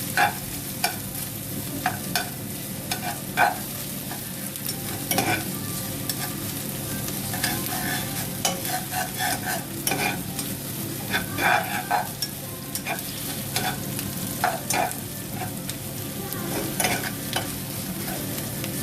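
Ginger, onion and garlic sautéing in hot oil: a steady sizzle while they are stirred, with frequent clicks and scrapes of the utensil against the pan.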